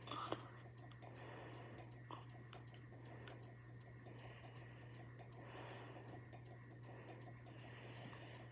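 Faint breathing close to the microphone, soft hissy breaths through the nose every second or so, over a steady low hum. A short click comes right at the start.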